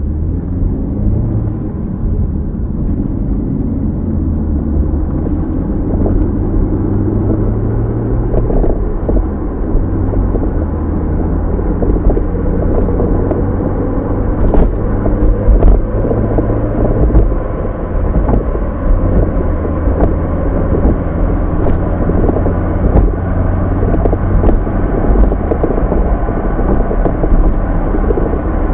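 Steady low rumble of a car driving, heard inside the cabin through the dashcam's microphone: engine and tyre noise on the road, with a few faint clicks.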